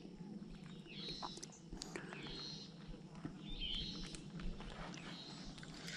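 Faint birdsong: a bird repeating a short chirping phrase about once a second, over a steady low background hum and a few light clicks.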